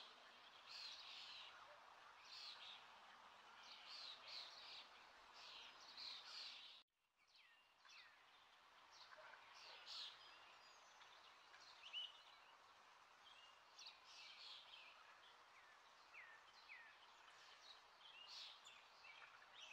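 Near silence with faint, scattered high chirps of small birds.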